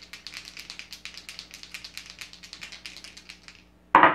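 Several small plastic dice rattled in a cupped hand before a roll: a fast, even run of clicks, about eight to ten a second, then one short, louder sound near the end.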